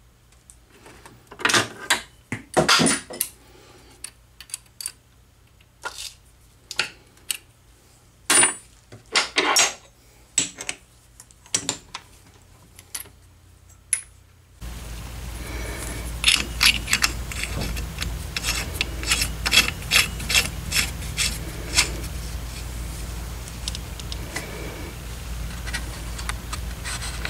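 Small metal lathe parts being handled by hand, with scattered clicks, scrapes and rubbing of metal on metal. About halfway through, a steady low hum comes in under a quicker run of metallic clicks and scraping.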